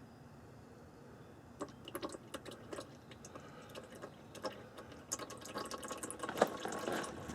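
Hot engine oil dripping from the drain plug hole of a 1964 Chevrolet Corvair into a drain pan as the draining slows to its last drops. Irregular drips start about a second and a half in and come more often toward the end.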